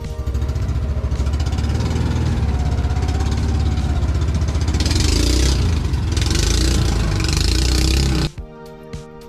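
Outboard engine of a small fishing boat running under way, a loud steady low throb, cutting off suddenly near the end.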